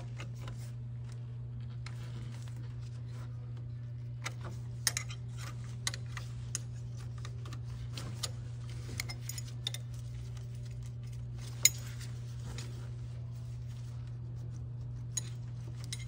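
Light metallic clicks and clinks from a chain press tool and the steel timing chain as the tool's screw is turned to push the connecting link through the chain, with one sharper click about two-thirds of the way in. A steady low hum runs underneath.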